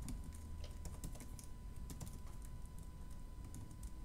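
Typing on the built-in scissor-switch keyboard of an M1 MacBook Pro laptop: faint, quick key clicks at an irregular pace as a name is entered.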